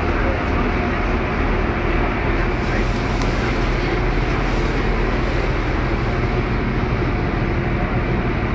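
River passenger boat's engines running steadily under way, a continuous low drone mixed with rushing water from the wake.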